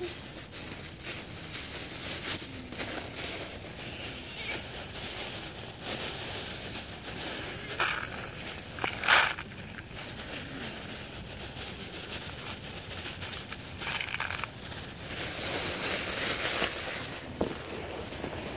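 Thin plastic bag crinkling and rustling as dry cat kibble is shaken out of it into a bowl, with a louder brief sound about nine seconds in.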